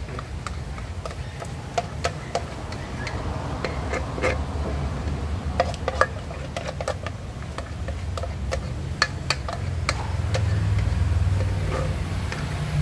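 Silicone spatula scraping and tapping against an enamel bowl as egg-yolk batter is scraped out into whipped egg white, making irregular light clicks and knocks. A steady low hum runs underneath and grows slightly louder near the end.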